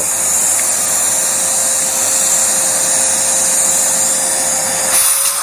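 Vacuum cleaner running steadily, sucking air through a carburettor with its throttle closed so that it pulls idle-level vacuum through the idle circuit. A steady rush of air with a constant whine underneath, the whine rising slightly near the end.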